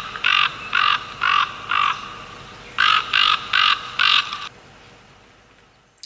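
Raven calling: two runs of four harsh croaks, about two a second, with a short pause between the runs.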